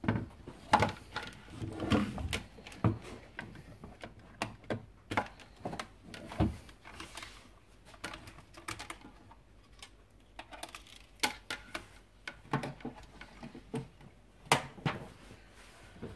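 Handling noise: irregular knocks, clicks and rustles as a plastic soundbar is shifted on a wooden desk and its power cable is plugged in.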